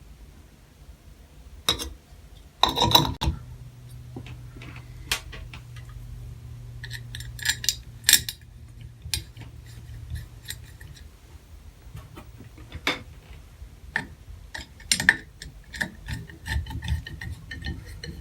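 Bathtub faucet handle being fitted back onto the valve stem: scattered small metal clicks, clinks and knocks, with a few louder knocks about three seconds in.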